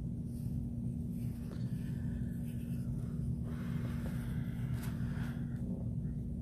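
Black marker tip scratching on a stack of construction paper while tracing around a hand, in two faint stretches from about a second and a half in, over a steady low hum.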